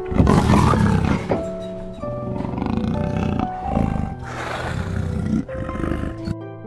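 Jaguars growling in rough play, in about four loud, rough bursts over the first five seconds, with soft instrumental background music underneath.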